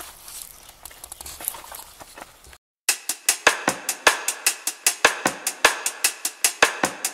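A quiet stretch with faint small clicks, then, after a short drop-out, background music with a drum kit playing a fast, steady beat cuts in about three seconds in.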